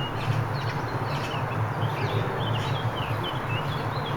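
Small birds chirping repeatedly, short quick calls, over a steady low hum.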